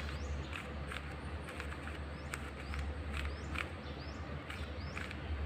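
Short plastic clicks of a 4x4 Rubik's Cube's layers being turned, at irregular intervals, over a steady low hum, with a bird chirping over and over in the background.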